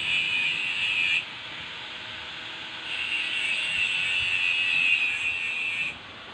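Steady high-pitched hissing in two stretches, each cut off abruptly, the first about a second long and the second about three. A single sharp click comes at the very end, as the amplifier's rocker power switch is pressed.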